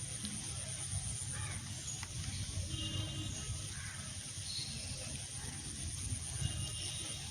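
Outdoor ambience: a steady high-pitched buzz, a low rumble on the microphone, and two brief faint calls, about three seconds in and again near the end.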